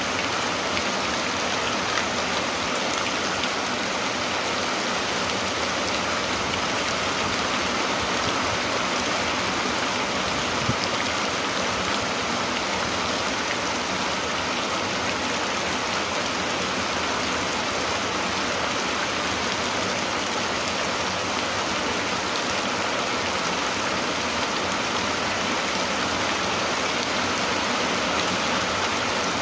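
Steady rain falling: an even, unbroken hiss at a constant level.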